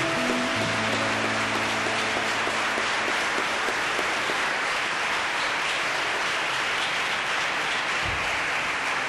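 Audience applauding steadily after a choir performance, while the last held chord of the music dies away in the first three seconds.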